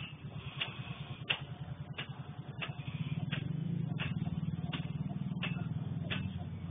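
Hoe blade striking and scraping the dirt in a steady rhythm, about three strokes every two seconds, over a steady low motor hum that gets louder about three seconds in.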